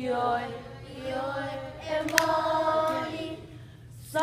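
A group of voices singing a song together in long held notes, with no instruments showing. A sharp click sounds about two seconds in.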